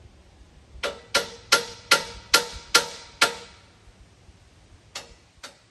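Sharp metal-on-metal blows, a hammer striking the steel sawmill track frame to knock it into square, each blow ringing briefly. Seven quick strikes about two and a half a second, then after a pause two more near the end.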